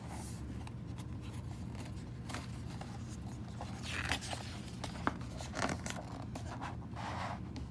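A picture book's paper page being turned by hand: a short papery swish about four seconds in, then a few light taps and a soft rustle, over a steady low hum.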